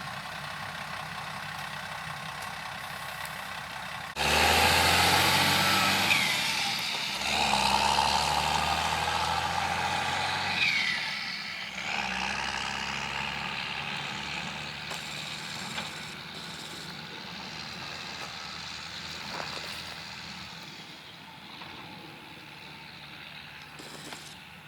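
Diesel engine of heavy farm machinery at work in a corn harvest: a steady drone that jumps suddenly much louder about four seconds in, with two brief high squeaks, then slowly fades away.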